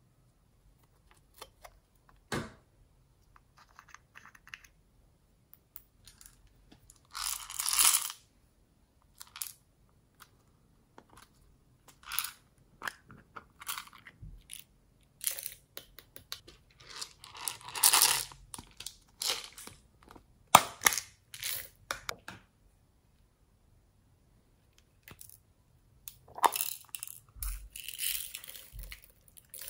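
Small plastic craft containers being handled, with scattered clicks and taps of hard plastic. There are bursts of rattling as beads and pearls shift and pour; the longest burst comes near the end as a container's contents are tipped into a tray.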